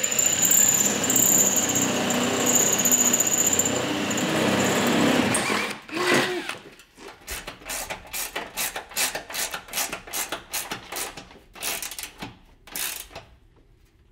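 Cordless drill running as it bores through the sheet-metal hood, with a steady high whine, stopping after about five seconds. Then a ratchet wrench tightening a bolt on the hood, making a run of sharp clicks.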